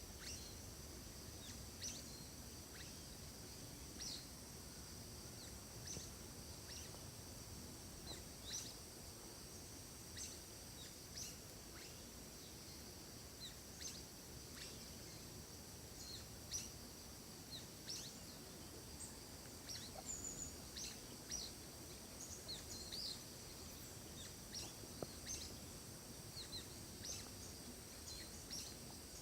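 Forest ambience: small birds chirping, short high calls every second or so, some falling in pitch, over a steady high-pitched drone and a faint even hiss.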